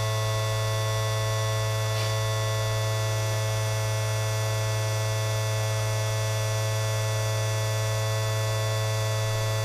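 Steady electrical hum from the Cessna 172's electrical systems, with the diesel engine not yet running, during the glow-plug preheat before a cold-weather start. A faint single tick about two seconds in.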